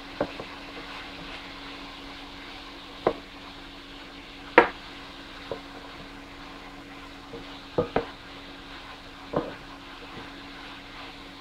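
Diced vegetables sizzling in a white-coated frying pan while a wooden spatula stirs them, knocking sharply against the pan now and then, about six times, loudest about four and a half seconds in. A low steady hum runs underneath.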